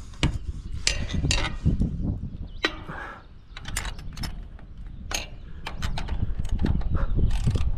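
Scattered metal clicks and clinks of hardware being handled: U-bolts, nuts and a steel clamp bracket being fitted on a galvanized antenna mast, over a steady low rumble.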